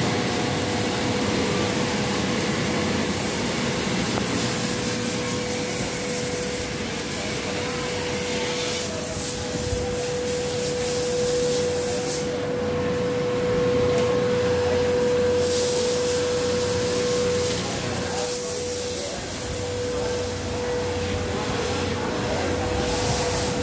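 Octane thread-sucking machine running: its vacuum motor gives a steady rush of air with a steady mid-pitched hum as the nozzle sucks loose threads off stitched garments and cuts them.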